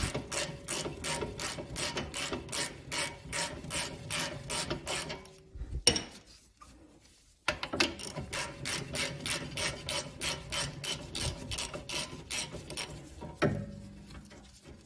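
A hand socket ratchet clicks steadily, about four clicks a second, as it backs out a 14 mm rear brake caliper bolt. The clicking breaks off briefly about six seconds in and resumes, with a single knock near the end.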